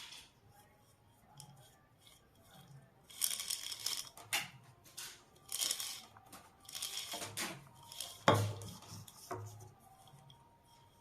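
Hand-handling noises of soldering-iron parts: irregular scraping and rustling from about three seconds in, and a sharp knock about eight seconds in.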